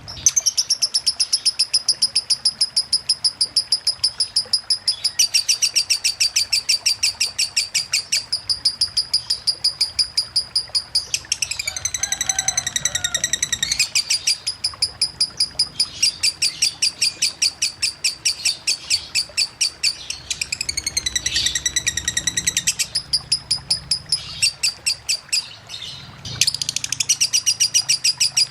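Lovebird singing a long, very fast run of repeated high chattering notes in the continuous 'konslet' ngekek style, broken twice by slower warbling notes that waver in pitch.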